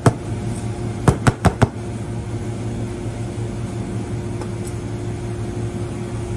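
Steady machine hum of kitchen equipment, like a fan or air-conditioning unit, with a quick run of four sharp clicks about a second in.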